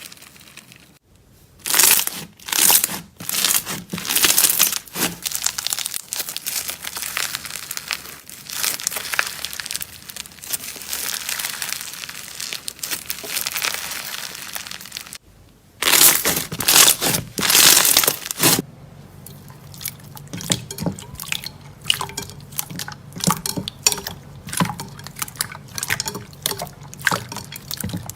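Slime being squeezed and pressed by hand, making crackling, crinkling and popping noises. There are abrupt changes about a second in and around fifteen seconds in, and the last third is quieter, with many small pops.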